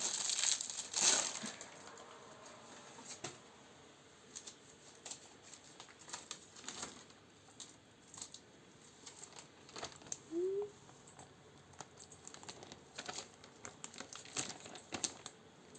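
Sporadic crinkling and rustling with small taps and clicks as fondant is handled and laid over a cake, loudest in the first second or so.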